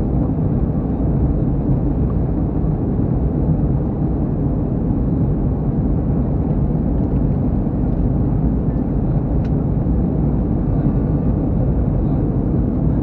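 Steady low roar of a jet airliner in cruise heard inside the cabin: engine and airflow noise. A faint click comes about nine seconds in.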